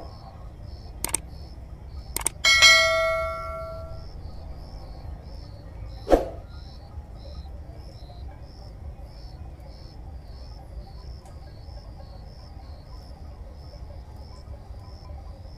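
Insects chirping in a steady, even rhythm over a low outdoor hum. About a second and two seconds in come two sharp clicks, followed by a ringing bell ding that fades over a second or so, the click-and-bell sound effect of a subscribe-button animation; a single thump follows about six seconds in.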